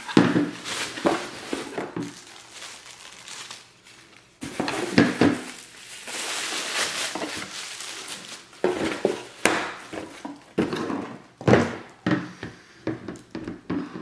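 Bubble wrap and plastic packaging crinkling and rustling as vacuum cleaner parts are unwrapped by hand, with a few sharp knocks of hard plastic parts being handled.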